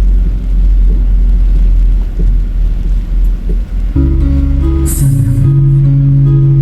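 Background music: a deep, bass-heavy passage that changes about four seconds in to guitar music with sustained notes.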